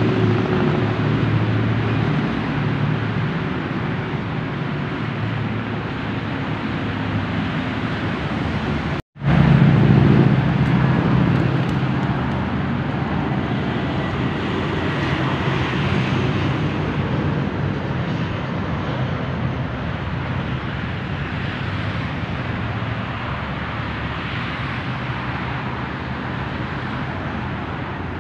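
Steady road traffic noise with a low engine hum from vehicles. It cuts out for a moment about nine seconds in, then comes back a little louder.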